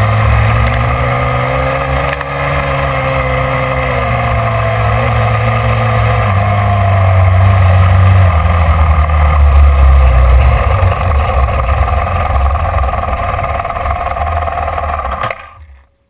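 Dirt bike engine running hard, heard from a mount on the bike, its note rising and falling with the throttle. It cuts off suddenly near the end.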